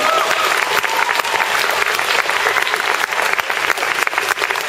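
Audience applause: many people clapping steadily, with a few voices calling out in the first second or so.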